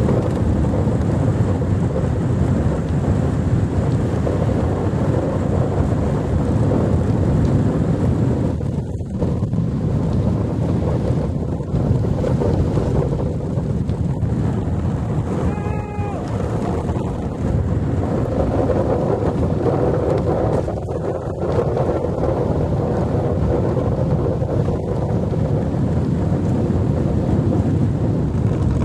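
Wind buffeting the microphone with the steady rumble of an ice boat's runners sliding over lake ice at speed. A short pitched squeal rises and falls about halfway through.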